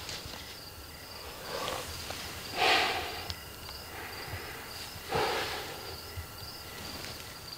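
Insects trilling steadily at a high pitch. Three soft breathy swishes cross it about two, three and five seconds in, the middle one loudest.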